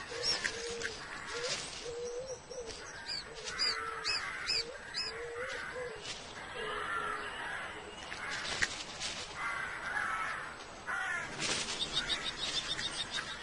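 Birds calling: a series of short, repeated calls over a steady outdoor background, with a quick run of high chirps near the end.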